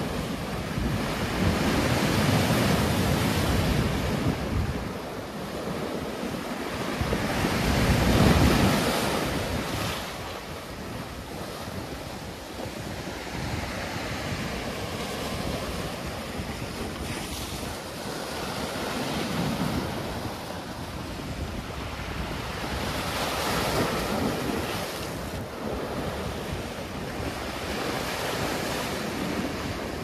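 Big sea waves surging and breaking on a beach, with wind buffeting the microphone. The surf swells and eases every few seconds, the loudest break coming about eight seconds in.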